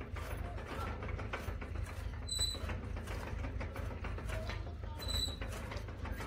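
Hand-cranked chaff cutter with a heavy spoked flywheel turning as it chops green fodder, creaking and knocking steadily, with a brief high squeak about every three seconds, twice.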